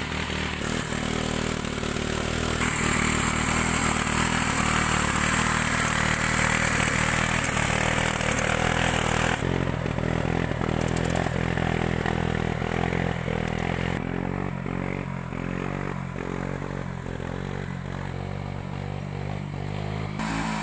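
Motorcycle petrol engine on a homemade two-wheel tiller running steadily, louder for several seconds in the first half, then dropping back to a lower, softer run.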